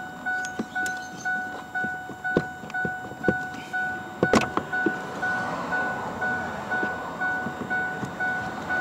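A repeating two-tone electronic warning chime dinging steadily, about two and a half times a second. Scattered knocks and clicks of plastic dash trim being handled sound alongside it, with one sharper knock about four seconds in.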